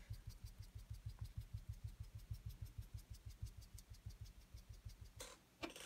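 Distress ink being rubbed onto cardstock with a foam blending tool over a paper mask: a rapid, even run of soft thumps, about eight a second. Near the end, a brief papery rustle.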